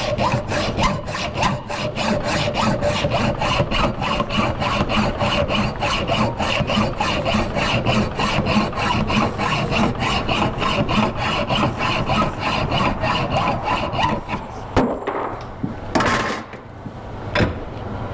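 Hand hacksaw cutting through 3/8-inch square metal bar stock held in a vise, in steady, evenly spaced back-and-forth strokes. The sawing stops about fifteen seconds in, and a few separate knocks follow.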